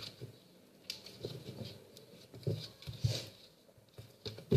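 Slime being handled by hand: irregular soft sticky clicks and squelches.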